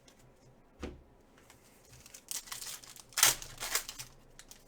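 Trading-card pack wrappers crinkling and tearing as packs are ripped open by hand, in short bursts over the second half, loudest just past the middle. A soft knock comes about a second in.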